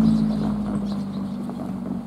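A vehicle's low, steady hum fading away.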